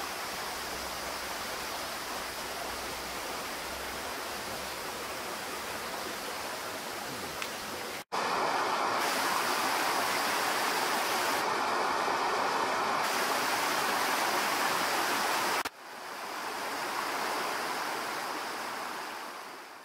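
Shallow mountain stream running over rocks, a steady rush of water. It cuts abruptly to a louder rush about eight seconds in, drops back to a softer rush near sixteen seconds, and fades out at the end.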